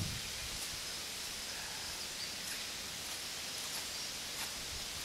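Outdoor rural ambience: a steady high hiss with a few short, high chirps scattered through it.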